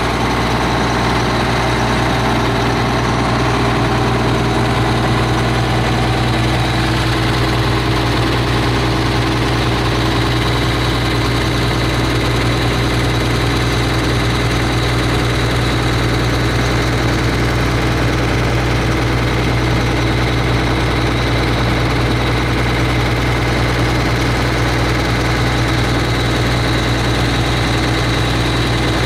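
Air-cooled Deutz diesel engine of a Poclain LY80 wheeled excavator running steadily at a constant speed, with a deep, even hum that does not change.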